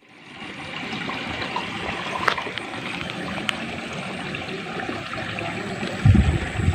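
Water trickling steadily, with a thin high steady tone over it and a few faint clicks. Near the end come a couple of low, loud thumps.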